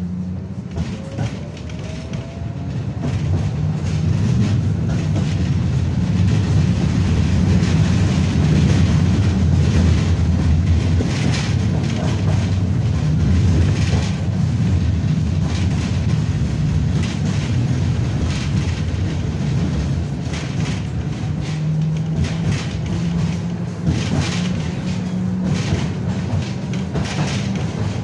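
A KTM tram running along its track, heard from inside the car: a steady low rumble that grows louder over the first few seconds, with clusters of wheel clacks over rail joints around the middle and again near the end.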